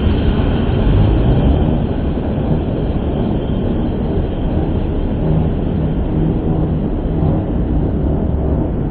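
Steady low rumble of heavy road traffic played back slowed to a quarter speed. It sounds dull and deep, with no high end.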